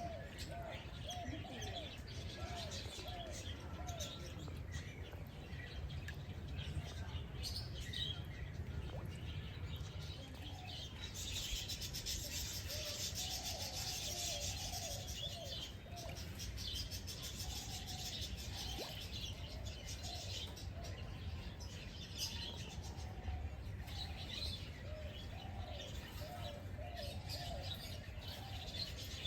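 Wild birds chirping and calling, many short high chirps throughout, busier in the middle, over a steady low rumble.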